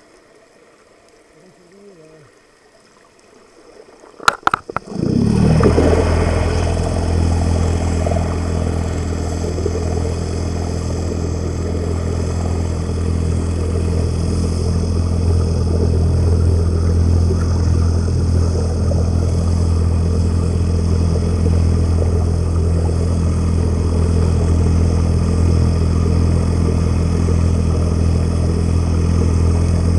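Boat's engine and propeller heard underwater: after two sharp knocks about four seconds in, a steady low droning hum starts and runs on without change.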